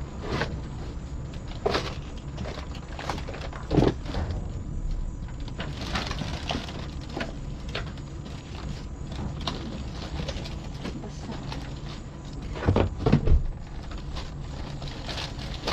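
Hands rummaging through discarded packaged goods and cardboard boxes in a dumpster: irregular rustling of packaging and light knocks, with a louder thump about four seconds in and a few more near the end. A steady low hum runs underneath.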